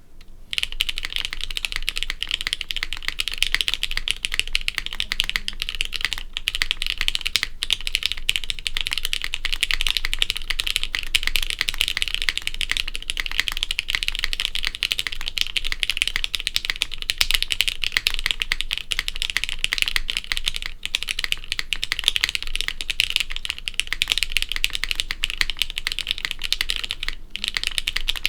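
Fast, continuous typing on a custom mechanical keyboard: lubed and filmed Gateron X linear switches on an aluminum half plate with GMK Café doubleshot ABS keycaps, a steady stream of bright key clacks with only a few brief pauses.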